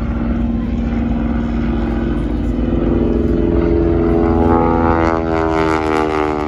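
Stearman 450 biplane's Pratt & Whitney R-985 radial engine droning steadily in aerobatic flight, its pitch rising in the second half.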